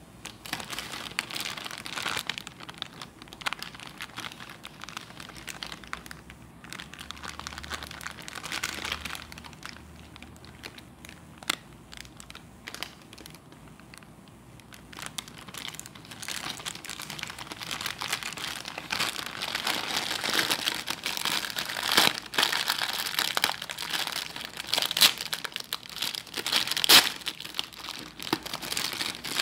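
Thin plastic wrapping on a multipack of cellulose scouring sponges crinkling and crackling as fingers handle it and pull at it to open it. The crinkling grows louder and busier about halfway through.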